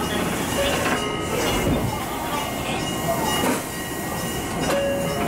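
Electric train of the Hokuriku Railroad Asanogawa Line standing at a station, heard from the driver's cab: a steady noise with scattered short tones.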